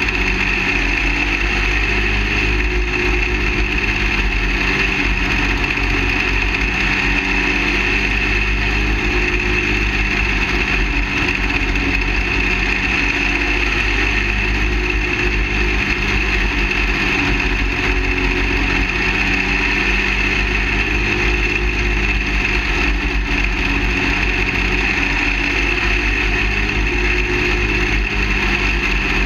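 Half-scale dirt late model race car's small engine running under racing load, heard from a camera mounted on the car's roof. It is steady and loud, its pitch wavering slightly through the turns, with low wind rumble on the microphone.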